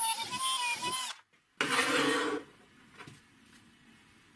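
A thin metal rod scraping against a PVC pipe end cap, giving a wavering squeal that stops about a second in. A short, rougher scrape follows about a second and a half in.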